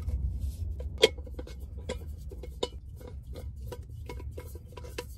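Jetboil camping stove being taken out and put together by hand: a quick run of small metal and plastic clinks and clacks, a few a second, the loudest about a second in, over a steady low hum.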